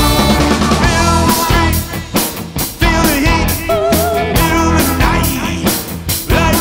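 Live rock band playing: singing over strummed acoustic guitar, electric guitars and a steady drum beat.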